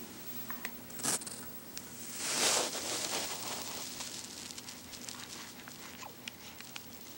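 Fabric rustling and handling noise close to the microphone as it brushes against a plush toy: a short rustle about a second in, a louder swish about two and a half seconds in, then small scattered clicks.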